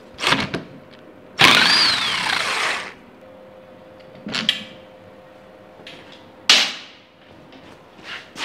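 Cordless power driver runs for about a second and a half with a falling whine, undoing a bolt at a motorcycle frame's shock mount. Short metallic knocks and clatters come before it and after, with a sharp knock about six and a half seconds in.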